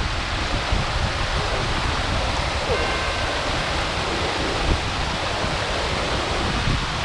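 Waterfall: a steady rush of falling water, with wind buffeting the microphone in uneven low rumbles.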